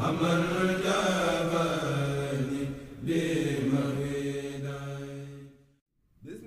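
Voices of a Mouride kourel chanting a khassaid in long, held phrases. The chant breaks off briefly near the end, then the next line begins.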